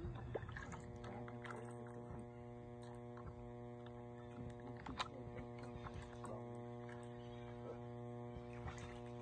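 A steady low hum with a stack of overtones, under scattered faint clicks and taps, the sharpest about five seconds in.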